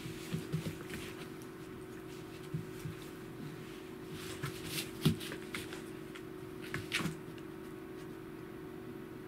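A corgi and a cat play-fighting on a wooden floor: scattered scuffles and thumps of paws and bodies, with a sharp knock about five seconds in and another burst of scuffling around seven seconds. It dies down near the end.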